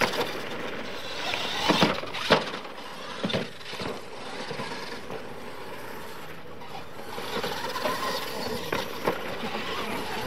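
Radio-controlled monster trucks racing on a dirt track: motors whining up and down with throttle and tyres churning the dirt, with a few sharp knocks about two and three seconds in.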